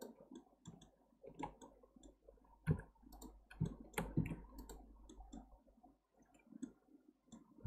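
Scattered, irregular clicks of a computer mouse and keyboard as keys and mouse buttons are pressed and the scroll wheel is turned.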